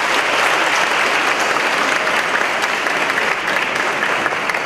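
Large audience clapping steadily.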